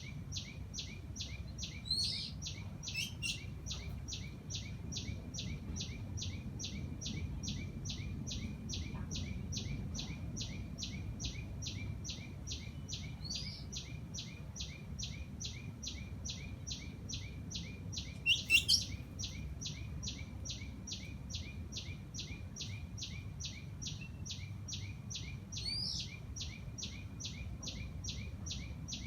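Garden birds calling in short, rising chirps, a few scattered through, the loudest a cluster about two-thirds of the way in. Under them runs a steady, even pulsing of about three beats a second, over a low background rumble.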